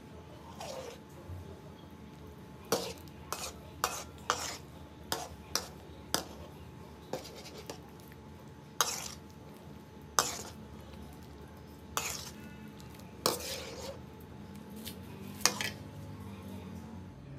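Metal ladle stirring a wok of seafood tom yum soup, knocking and scraping against the pan in a dozen or so sharp, irregular clinks a second or two apart.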